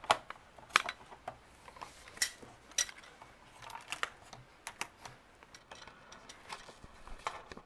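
LEGO plastic pieces clicking and clacking as a hand handles and refits parts of a built model: scattered sharp clicks at irregular intervals.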